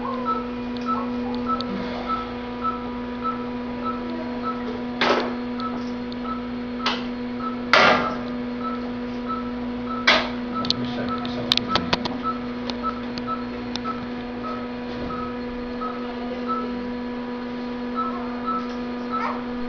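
Steady electrical hum from hospital equipment, with a short monitor beep repeating about one and a half times a second. A few sharp clicks and rustles of handling come through, loudest about eight and ten seconds in.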